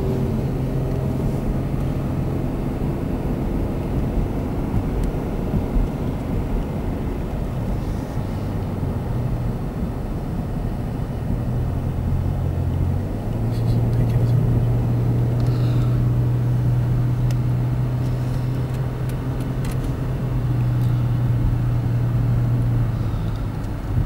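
Car engine running steadily while driving, a low hum that shifts pitch a couple of times and gets louder about thirteen seconds in.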